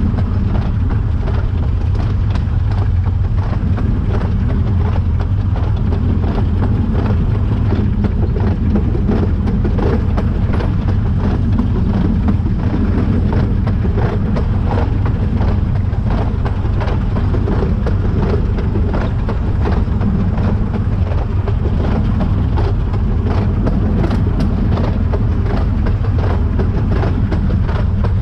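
Narrow-gauge 2-6-2 steam tank locomotive running along the line, heard from the footplate. The engine working and the wheels on the rails make a loud, steady rumble with a dense run of clicks and knocks.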